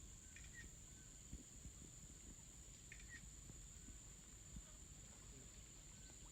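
Near silence: faint tropical forest ambience, with a steady high-pitched insect drone and two short bird chirps, about half a second and three seconds in, over a low rustle.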